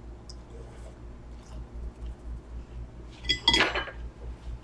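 A metal fork clinking against a ceramic dinner plate, with faint small taps, then two quick, louder clinks that ring briefly about three seconds in.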